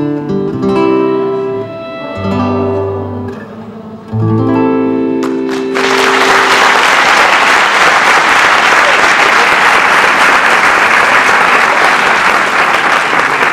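Nylon-string classical guitar playing the last notes of a song, ending on a chord at about four seconds in that rings on. Just before six seconds in, audience applause breaks out suddenly and continues.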